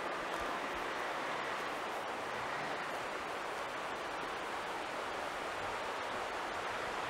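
Steady rushing of a stream tumbling over rocks.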